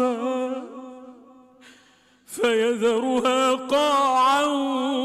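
A man reciting the Quran in melodic tajweed style. A long held, ornamented note fades away, and after a short pause a new long, wavering melismatic phrase begins.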